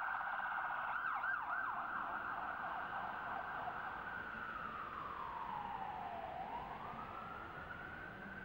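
Emergency vehicle siren: a few fast yelping sweeps about a second in, then a slow wail that falls in pitch and rises again near the end.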